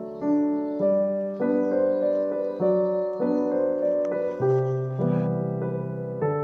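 Background music: sustained chords struck in an even beat, a new chord somewhat under twice a second.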